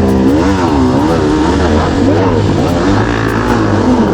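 Enduro dirt bike engine revving hard, its pitch climbing and dropping again and again in quick surges.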